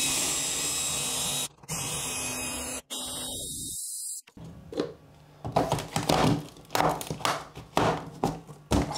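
AEG cordless drill running steadily as its bit cuts sideways through the thin wood of a hollow-core door, in three stretches with short breaks, stopping after about four seconds. Then a string of knocks and thuds as a round plastic vent fitting is pushed and seated into the hole.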